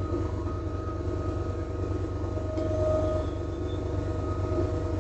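Versalift TEL29N bucket truck's generator-powered hydraulic boom system running while the boom lowers, a steady whine over a low hum.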